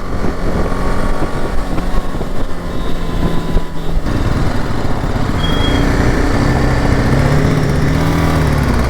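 BMW G 310 GS single-cylinder motorcycle engine running while riding; its note shifts about four seconds in, then rises and falls gently with the throttle.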